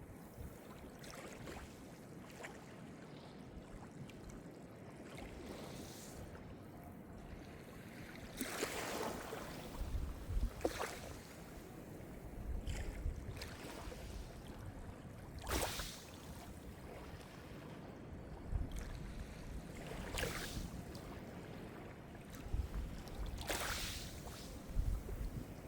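Calm Mediterranean surf: small waves breaking and washing onto the shore, with a louder splash every few seconds over a steady wash of water and a low rumble.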